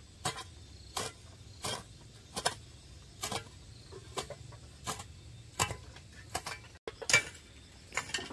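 Hammering: a steady run of sharp strikes a little faster than one a second, the loudest about seven seconds in.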